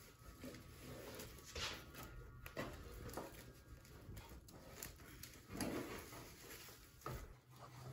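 Faint rustling and scraping of burlap ribbon being pulled through and wrapped around a dry grapevine wreath, in a few short bursts with small clicks of the vines.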